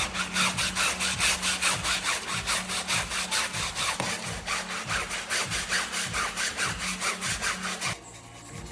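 Rapid, even back-and-forth rubbing or scrubbing strokes, about four to five a second, over a steady low hum; the strokes stop abruptly about eight seconds in.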